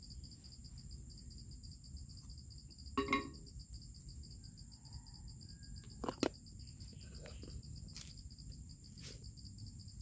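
Plastic AeroPress coffee maker being handled: a short rattle about three seconds in as the filter cap is worked on, and a sharp knock a little after six seconds as a wooden cup is set on top, with a few faint clicks after. Insects chirr steadily in a fast, even pulse throughout.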